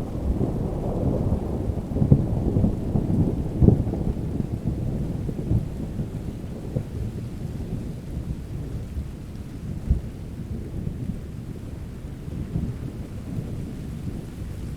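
Thunder rumbling with rain, with sharper cracks about two and four seconds in, then easing to a lower, quieter rumble.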